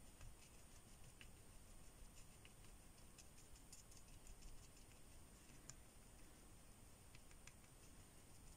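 Near silence with faint, scattered light ticks of a watercolour brush dabbing paint spots onto wet paper.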